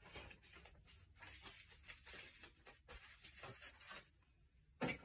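Faint rustling and tearing of a mailing package being opened by hand, in small irregular scratches. It goes nearly quiet for a moment near the end, then a short sharp noise.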